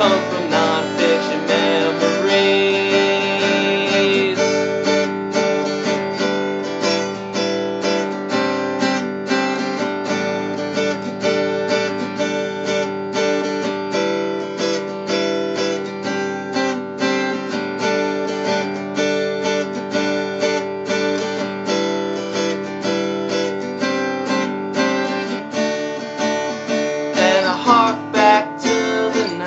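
Acoustic guitar music, strummed in a steady rhythm, with a brief livelier flurry of strokes near the end.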